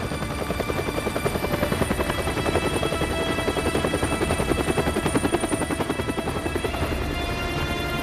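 Helicopter flying close, its rotor blades chopping rapidly and steadily, growing a little louder over the first two seconds.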